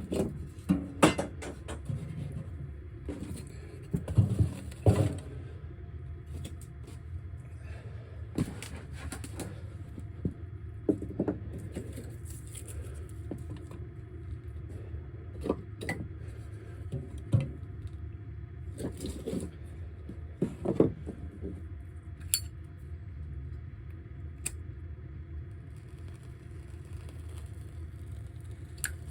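Irregular knocks, scrapes and light metal clinks of gear being handled in a small space, the loudest in the first few seconds and again in a cluster later on, over a steady low rumble.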